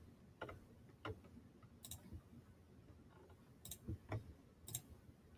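Computer mouse clicking: about five or six short, sharp single clicks a second or so apart over quiet room tone.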